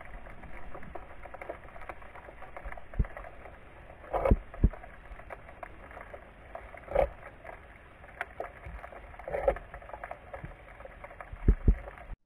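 Muffled underwater sound through an action camera's waterproof housing: a steady wash of water with several dull thumps and a few sharp clicks.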